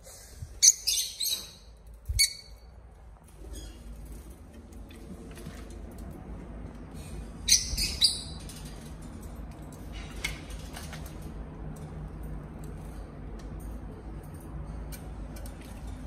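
Peach-faced lovebird giving high-pitched chirps, in two loud bursts about a second in and again about halfway through, with a shorter one just after two seconds. Fainter clicks and chirps follow over a steady low hum.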